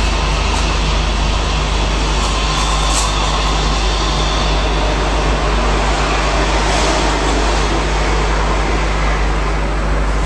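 Ascaso Steel espresso machine's steam wand hissing steadily into milk in a stainless steel frothing pitcher, steaming and frothing the milk.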